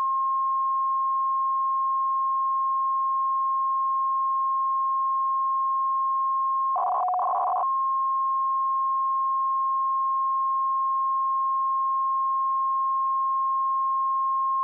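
Steady beep tone of a radio signal on 130 kHz, received through a WebSDR receiver over faint receiver hiss. About seven seconds in, a burst of scrambled, warbling tones cuts across it for under a second, then the steady tone carries on.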